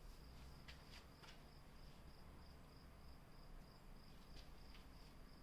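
Faint cricket chirping, a steady run of evenly spaced high-pitched pulses, with a few faint ticks.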